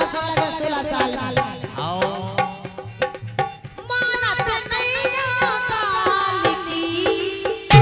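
A woman singing a Bundeli Rai folk song into a microphone, accompanied by steady dholak drum strokes. The singing drops back briefly a little past halfway, then returns with long, wavering held notes.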